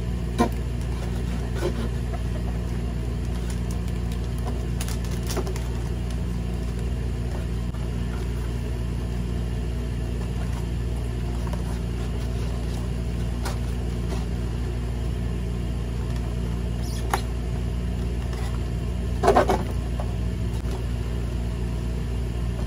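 A steady low hum, with a few light clicks and knocks as a foam-board box is handled. The loudest is a short scuff about nineteen seconds in.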